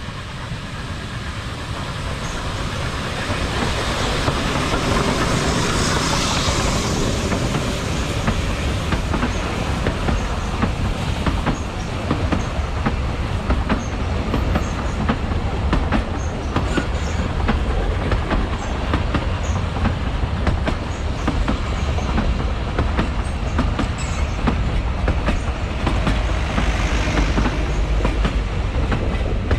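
A narrow-gauge train rolling past at close range: a low rumble with wheels clicking over the rail joints. It grows louder over the first few seconds, then holds steady.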